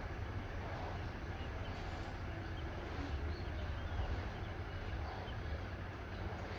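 Semi-trailer truck's diesel engine running with a steady low rumble under an even hiss.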